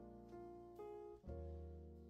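Quiet instrumental music: held chords over a low bass note, changing to a new chord about a second in.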